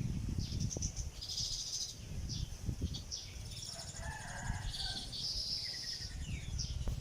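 Small nest-building birds chirping and chattering: many short, high chirps, with a longer buzzy trill and some lower chatter about four to five seconds in. A low rumble runs underneath.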